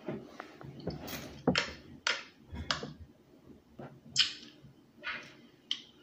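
Close-up eating mouth sounds: chewing with about seven short, sharp, wet smacks at irregular intervals.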